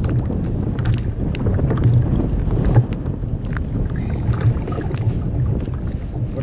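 Wind buffeting the microphone, with water sloshing against a kayak hull, in a steady uneven rumble with scattered faint clicks.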